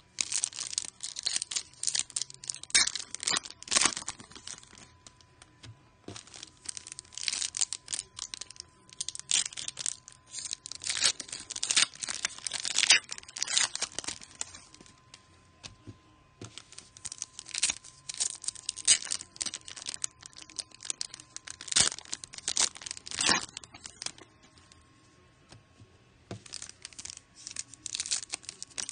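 Plastic wrapper of a Panini Prizm basketball card pack being torn open and crinkled by hand, in several spells of crackling separated by short pauses.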